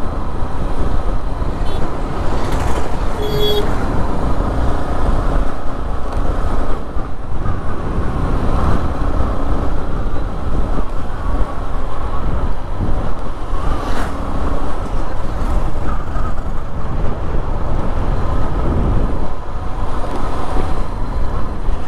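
Road traffic and engine noise heard from a motorbike on the move, with a heavy, uneven low rumble throughout.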